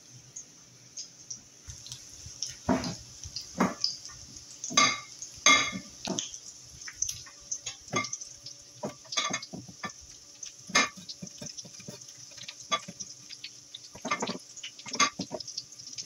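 Panko-breaded chicken of the woods mushroom pieces shallow-frying in hot oil in a medium cast iron skillet: a steady high sizzle with irregular crackling pops throughout.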